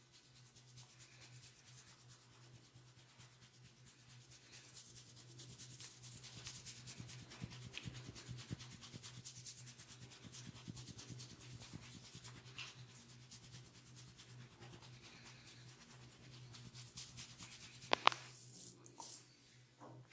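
Hands rubbing and kneading skin and hair in a massage: a soft, close, scratchy rubbing that builds up about a few seconds in. A single sharp click comes near the end, over a steady low hum.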